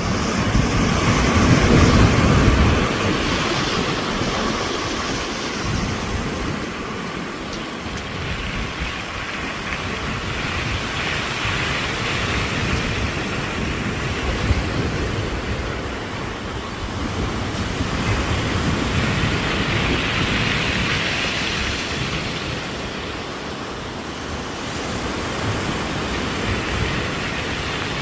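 Sea waves breaking and washing over a pebbly shore in strong wind, the surf swelling and easing every several seconds. Wind buffets the microphone with a low rumble a couple of seconds in.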